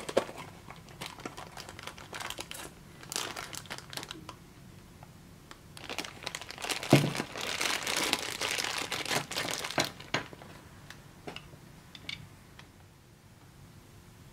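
A plastic gashapon capsule clicking open, then a thin plastic bag crinkling and rustling in irregular spells as it is handled, loudest in the middle, with one knock about seven seconds in.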